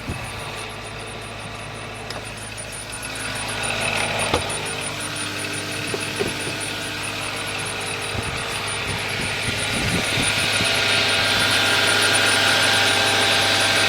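Mazda CX-7 engine running at idle with a steady high-pitched whistle over the engine hum, growing louder in the second half. The whistle is not from the belt pulleys, which have all been replaced; the owner suspects a valve.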